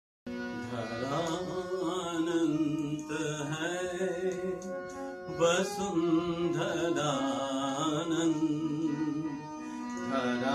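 Instrumental opening of a Hindi devotional prayer song: a wavering melody over a steady drone. It starts just after a brief silence.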